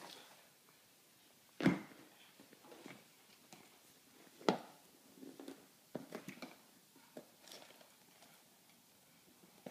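A toddler handling a baby doll and a handbag on a stone hearth: small knocks, clicks and rustling, with two louder knocks, one just under two seconds in and one about halfway through.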